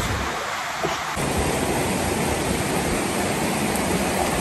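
Steady rushing noise, even across high and low pitches and without any clear rhythm or pitch.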